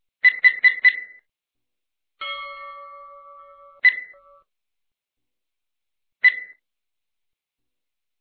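Electronic quiz sound effects: a quick run of four short beeps, then a chime of several steady tones that fades over about two seconds, then single short beeps a couple of seconds apart, the ticks of an on-screen countdown stopwatch.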